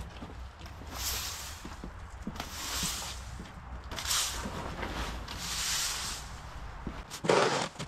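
Broom sweeping a sandy path in slow swishing strokes about every one and a half seconds, with a louder scrape near the end.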